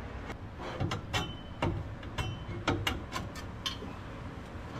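Irregular light metallic clinks and taps, a few with a brief high ring, as steel exhaust pipe sections are fitted together against the header collector.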